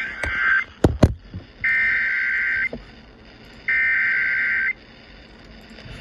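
Emergency Alert System SAME header data tones from a Motorola two-way radio's speaker: three harsh, buzzing bursts, each about a second long and about a second apart, the first already under way. They mark the start of a National Weather Service warning broadcast. Two sharp knocks from the radio being handled come about a second in.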